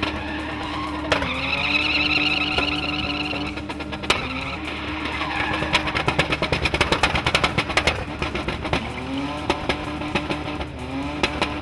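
SUV engine held high in the revs while drifting, the revs dipping briefly and climbing back several times. Tyres squeal in a wavering high note early on, and a stretch of rapid crackling comes in the middle.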